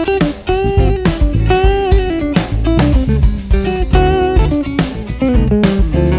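Funky electric guitar lines with bent notes, played through a Fractal amp-modeler patch modelled on a 1969 Fender Vibro-Lux with two 10-inch speakers, over drums and bass.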